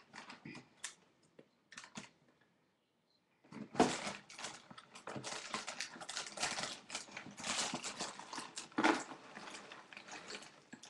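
Snack packaging crinkling and rustling as it is handled, a few faint clicks at first, then dense crackling from about three and a half seconds in.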